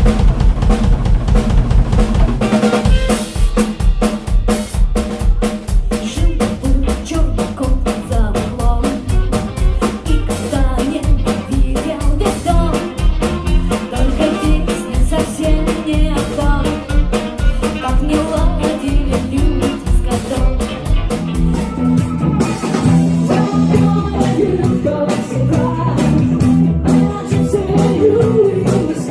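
Rock band playing a 1960s-style song, a drum kit keeping a steady, driving beat. About two-thirds of the way in, held chords fill out the sound under the drums.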